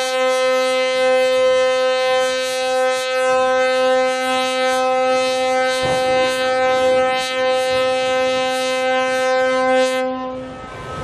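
Ship's horn sounding one long, steady blast of about ten seconds that stops near the end, over the rushing noise of a cargo ship's sideways launch into the water.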